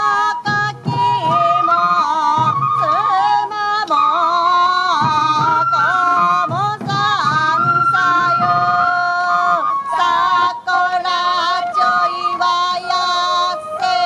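Sansa odori festival music: an ornamented Japanese folk-song voice with a wavering, sliding melody over flute and beating taiko drums.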